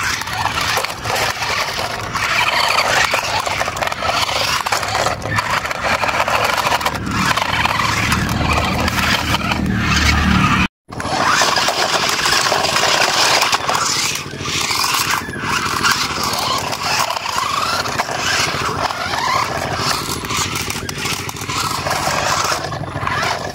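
Two toy RC cars, a double-sided stunt car and an off-road truck, running: small electric motors and plastic gearboxes whirring while the tyres scrape over gritty dirt, with scattered knocks and clatter as they tumble and bump. The sound cuts out for a moment about eleven seconds in.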